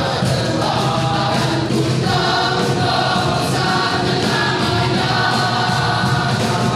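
Church youth choir singing in several parts, voices held in steady chords throughout.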